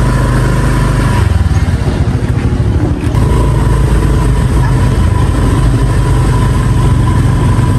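A motorbike engine running close by, a steady low drone whose note shifts about a second in.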